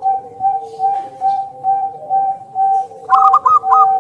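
Zebra dove (perkutut) singing: a run of short, even coos at one pitch, about three a second. About three seconds in, a quicker phrase of four higher, trilled notes joins them.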